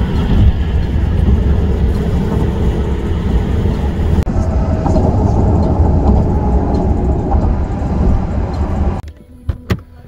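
Loud wind and road noise of a car moving at highway speed, with a heavy low rumble. It cuts off abruptly near the end, followed by a couple of sharp clicks.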